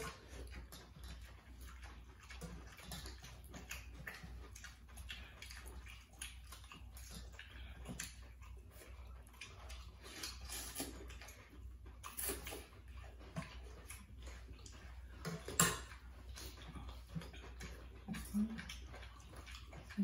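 People eating noodle soup: wet slurping and chewing with scattered small clicks of spoons against metal bowls, and one sharper, louder sound about three-quarters of the way through.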